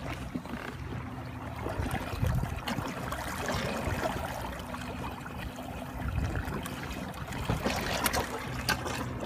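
Water rushing and splashing along the hull of a Hobie Pro Angler 12 kayak under way, with a low steady electric trolling-motor hum underneath. A few light knocks near the end.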